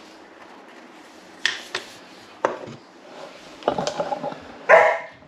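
Raw chicken strips being placed by hand onto the wire rack inside a halogen cooker's glass bowl: a few light clicks and clatters of handling. Near the end comes the loudest sound, a short pitched sound.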